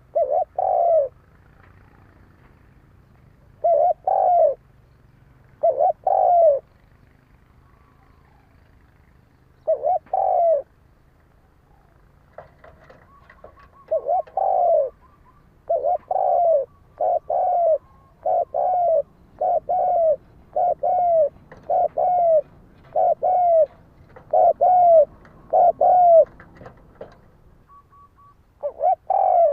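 Spotted dove cooing: short low coos in pairs, spaced a few seconds apart at first, then repeated in a quick run from about halfway.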